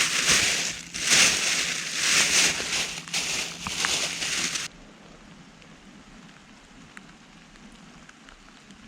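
Loud rustling and crackling of leafy stems being handled and snapped off, coming in uneven surges and cutting off suddenly a little under five seconds in, leaving only a faint steady background.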